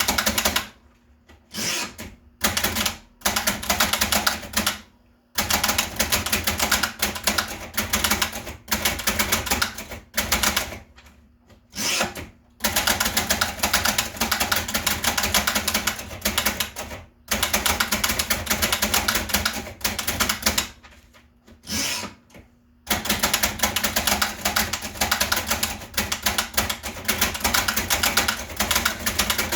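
1920s Bing No.2 portable typewriter being typed on: fast runs of key strikes lasting a few seconds each, broken by short pauses.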